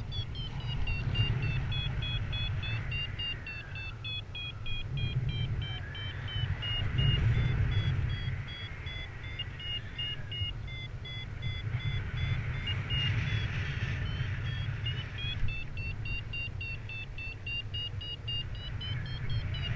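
Wind rumbling over the microphone in flight. Over it, a paragliding variometer beeps in quick short tones, the signal that the glider is climbing. The beeps' pitch sags lower for a while and then rises again as the climb rate changes.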